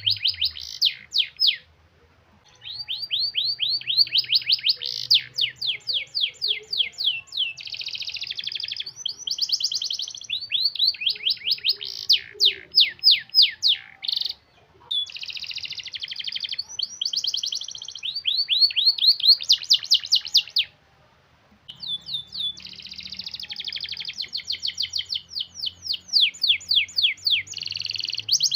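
Domestic canary in full song, delivering long, tight rolls of rapid repeated notes in phrases several seconds long, with a few brief pauses between them.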